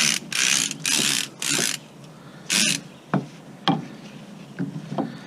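Ratchet on an Erickson retractable cargo strap being worked: four short clicking rattles about half a second apart, another about a second later, then a few single sharp clicks.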